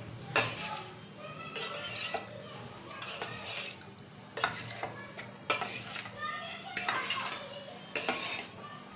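Metal spoon scraping and clinking against a stainless steel bowl while raw chicken pieces are mixed into a wet vinegar and soy sauce marinade, in short bursts about once a second.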